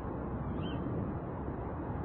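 Night-time small-town ambience: a steady low rumble of distant traffic, with one brief faint high chirp a little over half a second in.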